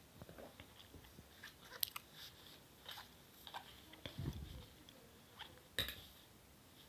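Faint handling noise of a fabric blood-pressure cuff, its rubber tubing and a metal stethoscope being fiddled with by small hands: scattered clicks, rustles and light knocks, the sharpest about two seconds in and again near six seconds.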